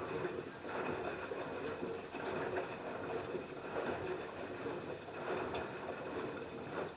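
LG F10B8QD1 front-loading washing machine tumbling a wash load, the laundry and water sloshing in the drum in repeated swishes.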